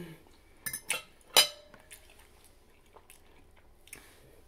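Eating sounds: a couple of short wet mouth clicks, then about a second and a half in a sharp clink with a brief ring, a fork being set down on a dinner plate. A few faint ticks of handling follow.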